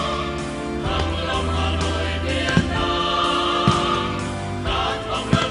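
Music with a choir singing over sustained accompaniment, broken by a few short sharp thuds about two and a half, three and a half and five seconds in.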